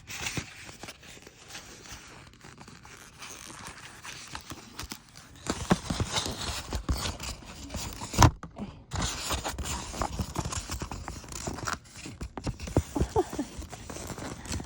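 Hands handling and opening souvenir packaging: quiet rustling at first, then a busy run of clicks, taps and scrapes from about five seconds in, with one sharp knock near the middle.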